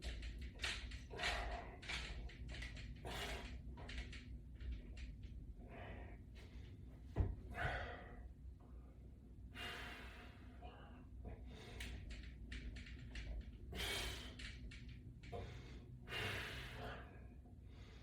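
A man breathing hard during a set of resistance-band lying presses, with short forceful exhales every second or two. A single sharp knock comes about seven seconds in.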